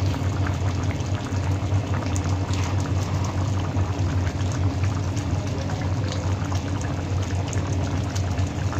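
A pan of chicken kaldereta stew bubbling on the stove, with a steady stream of small pops and crackles over a constant low hum.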